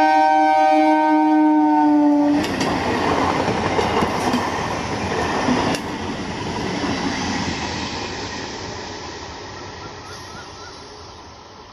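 Train horn sounding a loud steady chord that dips slightly in pitch and stops about two seconds in as the train passes, then the wheels rushing and clattering on the rails with a few sharp clacks, fading steadily as the train moves away.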